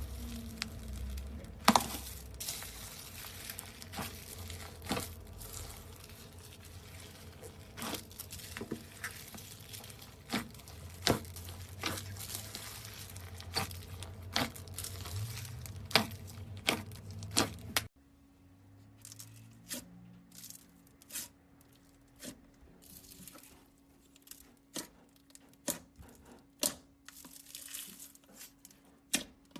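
Slime being squeezed and worked by hand, making crackling, crinkling pops and sharp clicks. About two-thirds of the way through, the sound drops suddenly to a quieter run of sparser clicks and pops.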